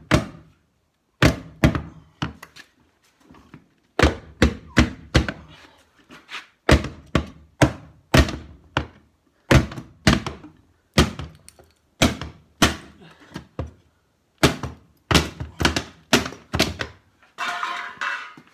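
Hammer blows knocking apart the wooden interior boxes of an antique York safe through a cut-open side: runs of sharp knocks, about two to three a second, with short pauses between the runs. A rougher rummaging clatter comes near the end.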